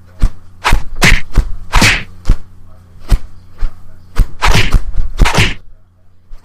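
A string of about a dozen sharp whacks and slaps, cartoon hitting sound effects, irregularly spaced, some with a short swishing tail, over a faint steady low hum.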